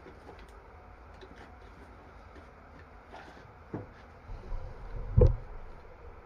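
Faint clicks and taps of a distributor's metal parts being handled, then a few knocks, the loudest a dull thump about five seconds in.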